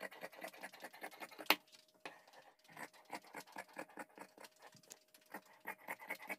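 Large tailor's shears cutting along a chalk line through printed dress fabric on a table: a quick run of short snips as the blades close again and again, with one louder snip about a second and a half in.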